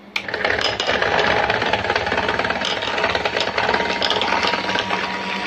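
Electric hand mixer switched on with a click just after the start, then running steadily as its beaters whip cream and sugar in a glass bowl.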